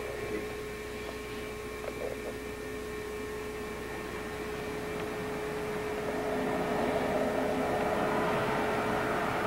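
A steady electrical hum, with a broad rush of noise swelling in over the second half.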